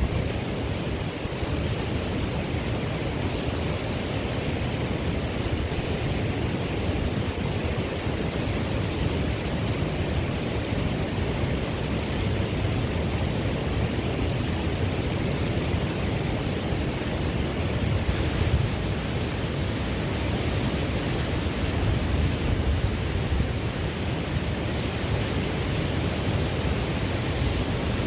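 Steady, even rushing noise, heaviest in the low range, with no breaks or distinct events.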